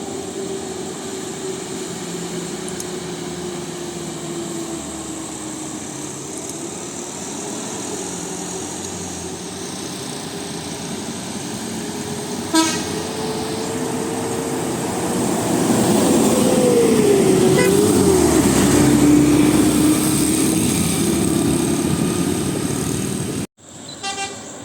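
Intercity bus passing on a highway, its engine and road noise growing louder as it comes close, with a short horn toot about halfway through and another brief horn blast at the very end.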